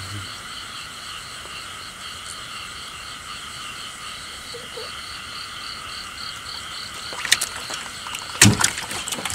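Night chorus of frogs and insects: steady high-pitched trilling with a regular pulse, about three a second. Near the end come a few sharp knocks and a thump as a fish is dropped into the bottom of the boat.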